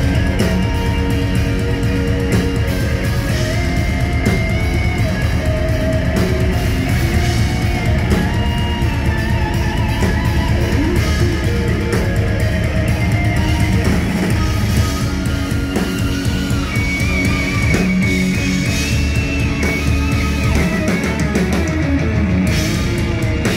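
An instrumental progressive rock band playing live, with electric guitars, bass guitar and drums. The lead guitar plays a melody of long held notes that slide between pitches over a dense, steady bass and drum backing.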